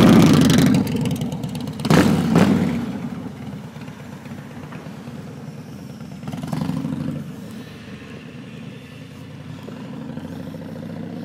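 Chopper motorcycle engine pulling away and fading into the distance, with two sharp knocks about two seconds in and a brief swell of engine sound near the middle.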